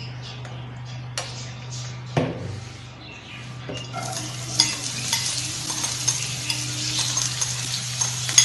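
Chopped onions spooned into hot oil in a frying pan, sizzling from about four seconds in, with a spoon clinking and scraping against the pan and bag. Before that, a few knocks as the oil is poured.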